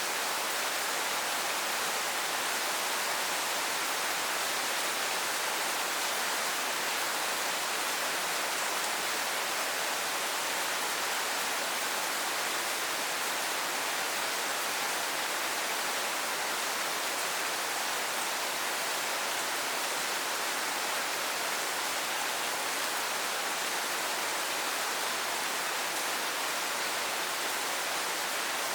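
Steady rainfall, an even hiss without change.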